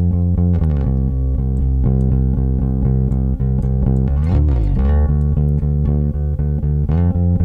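Recorded bass line playing back through a compressor set to a high ratio with a slow attack, so the notes come out at an even level without sharp attacks popping out. About four seconds in, one note slides up and back down.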